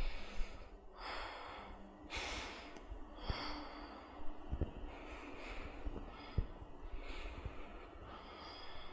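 A woman breathing slowly and audibly, several soft breaths in and out about a second apart, with a couple of faint clicks.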